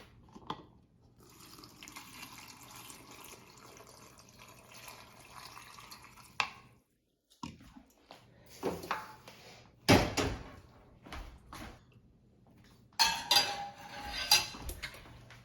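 Pickling brine being poured over jalapenos: a steady stream of liquid for about five seconds that cuts off sharply. After a short pause come a few knocks and clinks of kitchen containers, and more clatter near the end.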